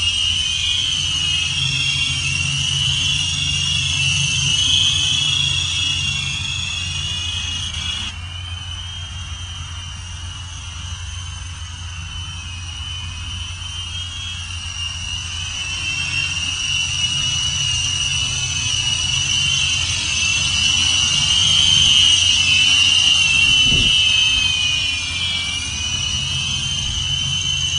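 Draganflyer X-Pro quad-rotor electric RC helicopter's motors and rotors whining steadily in flight, with a high whine that wavers in pitch as the throttle shifts. The whine drops abruptly in level about eight seconds in and rises again later.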